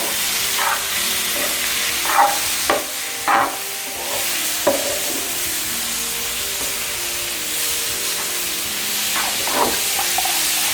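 Mutton liver sizzling in hot oil in a kadai with onions, stirred so that the utensil scrapes the pan several times, mostly in the first few seconds and again near the end.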